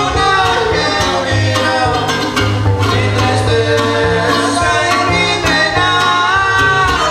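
Live trío huasteco music: a man sings into a microphone while bowing the violin, over a steady strummed string accompaniment.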